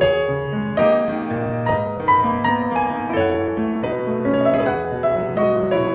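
Background piano music: a gentle melody of struck, sustained notes over a steady accompaniment.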